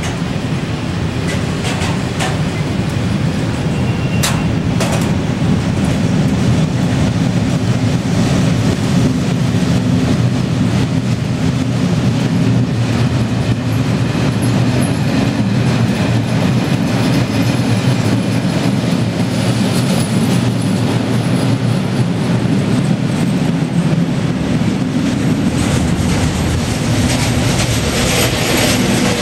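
Freight train of covered goods wagons rolling past close by: a steady, loud rumble of wheels on the rails. There are two sharp knocks a little after four seconds in.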